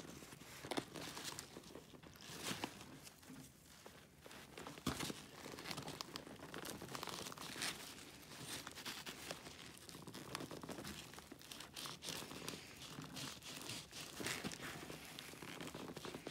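Nylon pack fabric rustling and a plastic strap slider scraping and clicking as fingers push and rock it onto its sewn-in rail on the backpack shoulder strap. The sound is a faint, irregular run of scratches and small clicks.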